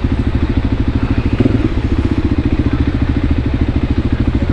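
Voge 300 Rally's single-cylinder engine running at low, steady revs, with an even, rapid firing pulse.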